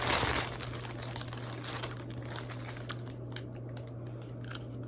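Cracker wrapper crinkling as it is handled, loudest at the start and then dying down to scattered faint crinkles and clicks.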